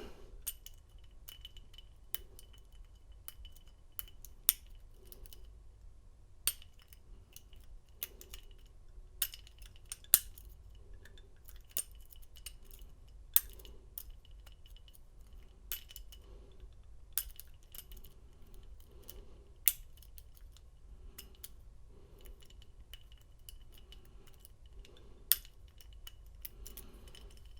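Lock pick and tension wrench working the pin stack of a Defiant deadbolt while the lock sits in a deep false set: sharp, irregular metallic clicks, a few of them much louder, as the pick lifts and sets pins in search of the spool pin.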